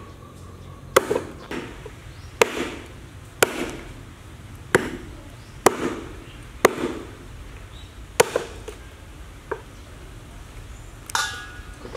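A heavy meat cleaver chopping meat and bone on a round wooden chopping board, in about nine sharp, unevenly spaced strikes of roughly one a second.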